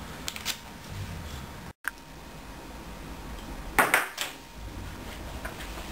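Light clinks and knocks of a cup being handled, with a couple of sharper knocks a little before the four-second mark.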